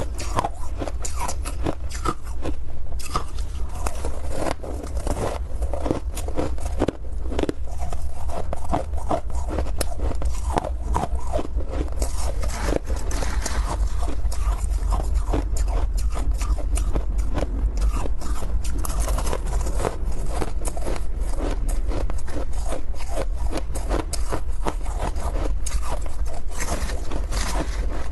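Ice being bitten and chewed close to the microphone: a dense, irregular run of crunches and cracks over a steady low rumble.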